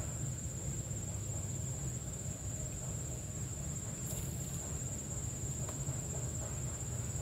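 Insects trilling in a steady, unbroken high-pitched chorus from the riverbank vegetation, over a low steady rumble.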